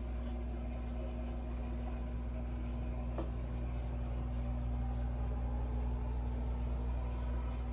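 Steady low mechanical hum with a faint constant tone, and a small click about three seconds in.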